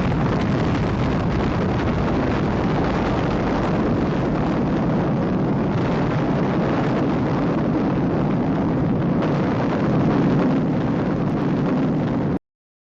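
A steady, loud rushing roar with no clear pitch, heaviest in the low end, that cuts off suddenly near the end.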